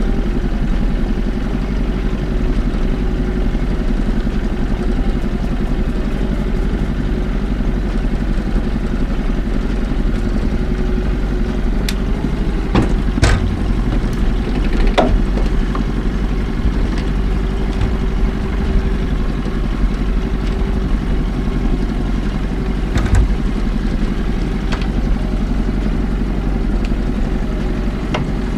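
An engine running steadily at low revs, with a few sharp clicks or knocks about halfway through and once more later.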